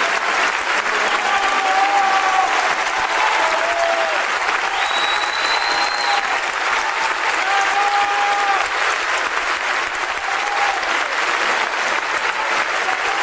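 Concert audience applauding steadily, with scattered shouts from the crowd above the clapping.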